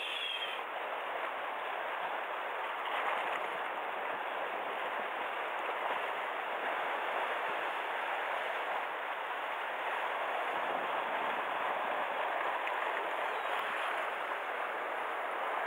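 Sea water washing against a rocky shore, a steady even rush with no break.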